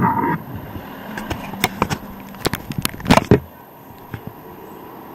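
A coach passing close by in street traffic, with a brief high tone that cuts off just after the start. A string of sharp clicks and knocks follows, the loudest about three seconds in, before the steady traffic hum settles.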